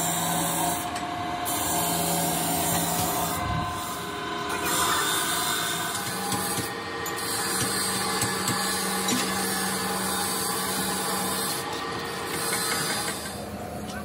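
Steady workshop noise with a low mechanical hum, and scattered light clicks and scrapes of a hand tool working on a metal hydraulic jack housing.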